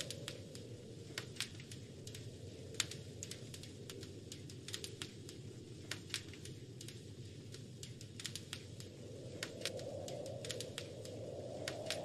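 Wood fire crackling, with irregular sharp pops and snaps, over a steady low rush of wind that swells in the last few seconds.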